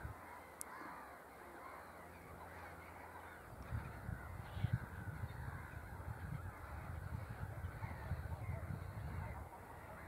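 Faint calls of distant birds, many overlapping and wavering. From about three and a half seconds in, a low rumble on the microphone joins them with a few louder knocks, then eases off near the end.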